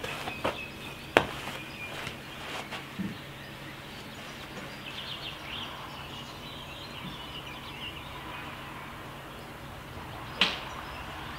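Quiet open-air background with faint bird chirps in the middle, broken by a few sharp clicks in the first three seconds and one crisp strike about ten seconds in.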